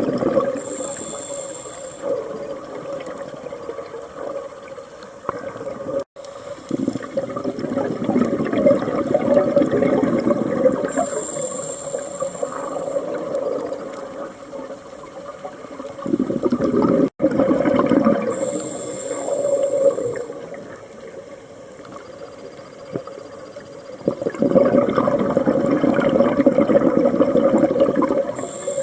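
Scuba diver breathing through a regulator underwater: a short hissing inhale with a thin high whistle, then a longer, louder rush of exhaled bubbles, repeating about every eight to ten seconds, three times.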